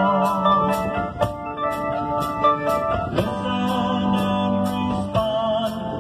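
Live rock band playing through a PA: electric guitars and drums, a cymbal struck about twice a second, over held keyboard chords that change about three seconds in and again near the end.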